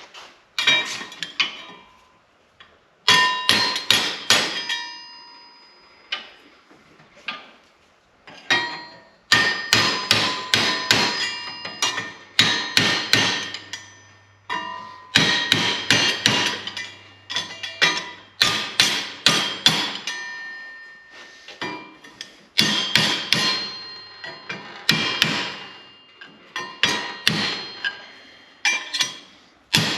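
Hammer striking a sheet-steel flange clamped in a bench vise, bending it flat along a marked line. The blows come in quick runs with short pauses between, and each one rings metallically.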